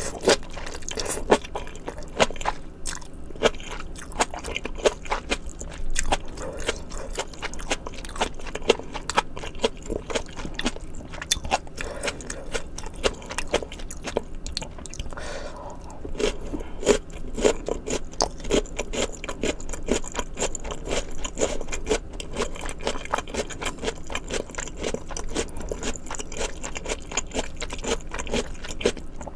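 Close-miked chewing and crunching of mouthfuls of spicy malatang: a dense, irregular run of crisp bites and wet mouth clicks.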